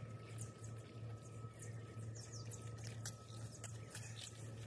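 Faint outdoor ambience: small birds chirping in quick, short, high calls over a low steady hum.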